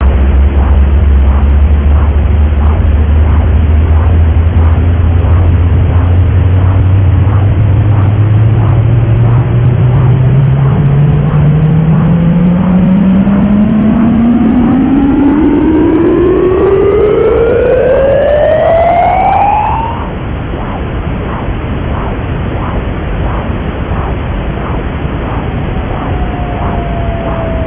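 Computer-generated space-style sound: a loud hiss carrying a low tone that glides steadily upward for about twenty seconds and then cuts off, with faint even ticks a little over one a second. Near the end, a short tone slides gently downward.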